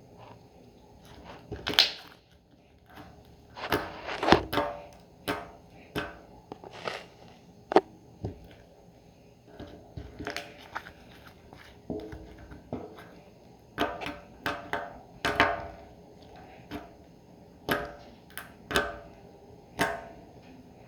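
Slime being squished, with irregular sharp pops and clicks, about one or two a second.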